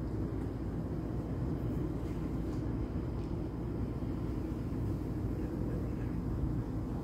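Steady low background rumble without clear events, with a few faint ticks.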